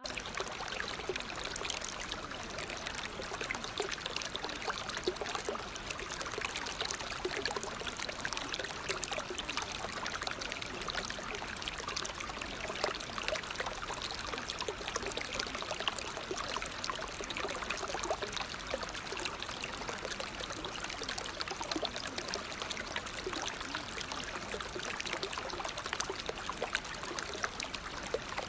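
Steady sound of running water, like a flowing stream, full of small splashes and crackles.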